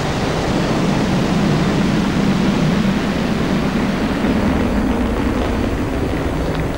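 Ariane 5 launcher's two solid rocket boosters and Vulcain main engine firing at full thrust while climbing just after liftoff: a loud, steady rushing noise with a deep low rumble. The higher part of the noise thins slightly about four and a half seconds in.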